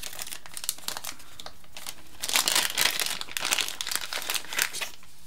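A small clear plastic parts bag crinkling as fingers open it, the crackling growing louder and denser from about two seconds in.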